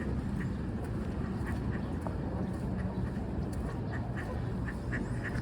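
Ducks quacking: short calls scattered through, coming closer together near the end, over a steady low rumble.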